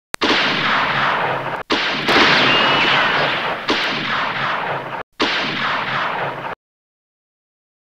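Gunfire sound effects: three stretches of dense shooting, each starting and cutting off abruptly, with brief breaks about a second and a half in and about five seconds in. A few short whistling glides sound during the middle stretch.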